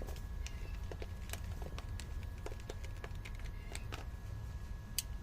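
Scattered light clicks and taps of hands working on the air conditioner's electrical parts, with one sharper click about five seconds in, over a steady low rumble.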